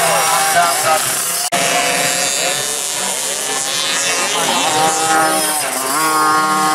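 Several 50cc motocross bikes' two-stroke engines revving hard, their pitch climbing and dropping repeatedly as the riders open and close the throttle and shift. The sound breaks off for an instant about a second and a half in.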